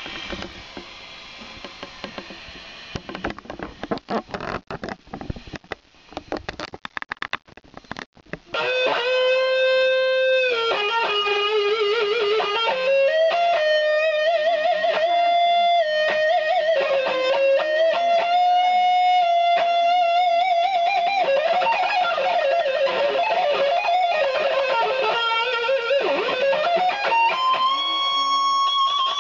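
Electric guitar through a Maxon OD-02 overdrive pedal into a 15CDR amp with a 12-inch Celestion speaker. It opens with several seconds of choppy, noisy scratching strokes, then about eight seconds in switches to a loud, sustained single-note lead melody with wide vibrato and slides between notes.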